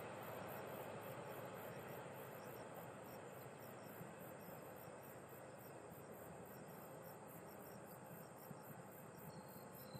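Insects chirping in a rapid, even, high-pitched pulse, about four to five pulses a second, over the faint noise of a passenger train fading as it runs away into the distance.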